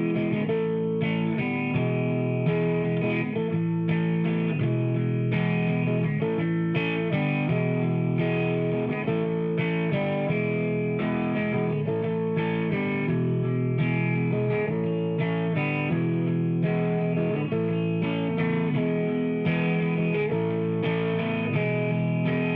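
Background music: electric guitar with distortion, steady and rhythmic.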